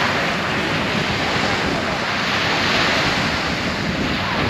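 Small waves washing onto a sandy beach, with wind on the microphone: a steady rush of noise.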